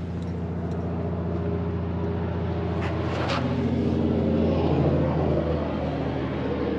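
A vehicle engine runs as a steady low drone with a hum, growing gradually louder.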